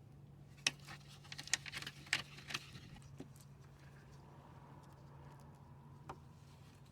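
A short cluster of sharp clicks and clinks from about half a second to two and a half seconds in, then one more click near six seconds, over a low steady hum: hand tools and metal parts being handled while a replacement starter motor is fitted.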